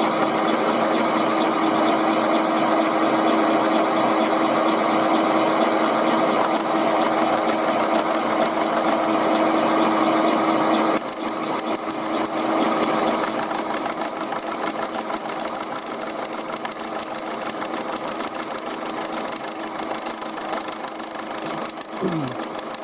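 Milling machine running with a steady hum, its end mill cutting through the thin tinplate rim of a food tin. About eleven seconds in the sound drops abruptly and turns into a fast ticking chatter, as the thin, lightly clamped tin vibrates under the cutter.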